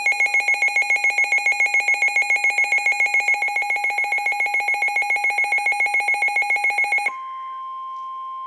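Weather radio receiver's alert alarm: a loud, rapid beeping for about seven seconds that stops abruptly, replaced by the steady single-pitch NOAA Weather Radio alert tone announcing an incoming warning.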